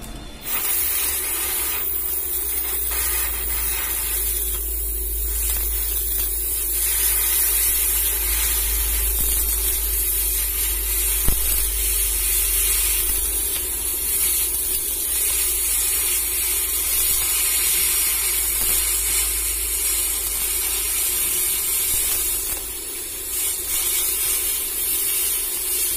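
Hand-held gas cutting torch hissing steadily as it cuts metal at a truck's wheel. A single sharp knock about eleven seconds in.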